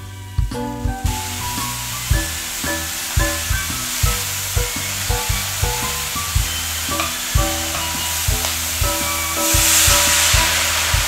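Napa cabbage halves sizzling in a hot pan, starting about a second in, with the hiss growing louder near the end as chicken stock is poured in. Background music with a steady beat plays throughout.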